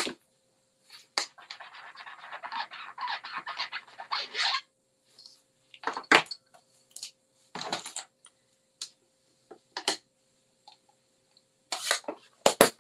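A rubber stamp rubbed clean on a stamp-cleaning shammy in a plastic case: a few seconds of scratchy rubbing, followed by scattered light clicks and knocks as craft tools and the case are handled and set down.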